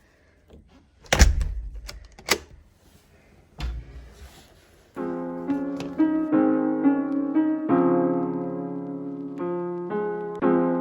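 A few separate thumps in the first four seconds, the first the loudest, then background piano music comes in about halfway through and carries on.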